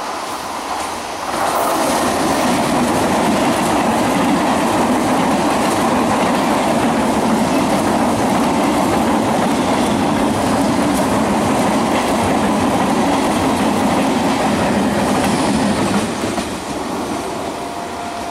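Electric multiple unit (EMU) suburban train passing close by, a loud steady noise of wheels and carriages on the rails. It starts about a second in and drops away near the end.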